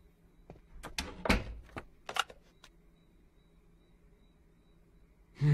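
Footsteps and a door being opened and shut: a handful of short clicks and knocks over the first two seconds or so, the loudest a heavier knock just over a second in.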